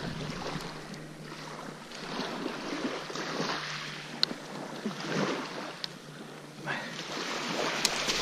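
Small waves washing on a pebble shore, with a few sharp clicks about halfway through and near the end as a striped bass is unhooked.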